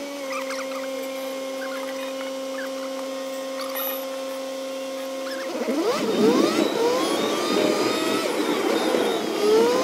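Car engine heard from inside the cabin on a recording played back about ten times faster than real time, so it sounds pitched up. It holds a steady idle hum while stopped at a traffic light, then about five and a half seconds in it turns into quick rising and falling pitch sweeps as the car pulls away and accelerates through the gears.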